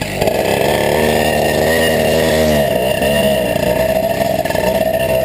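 Small two-stroke moped engine accelerating as it pulls away, its pitch rising at the start and then holding, with a brief dip and recovery about two and a half seconds in.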